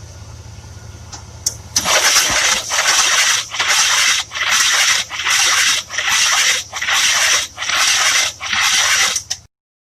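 Buick 425 nailhead V8 cranking on its starter with the spark plugs out: a loud rhythmic whooshing of air and Seafoam engine treatment blowing out of the open plug holes, pulsing about once every 0.8 s. It starts about two seconds in and cuts off just before the end. The turnover is slow, which the owner takes for a problem, since the engine cranks but won't start.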